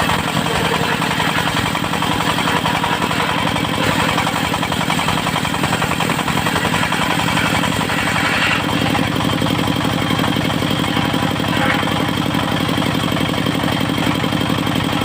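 Engine of a mobile circular-saw rig running steadily with a fast, even knock. About eight and a half seconds in, its sound shifts: the higher hiss drops away and the low running note becomes stronger.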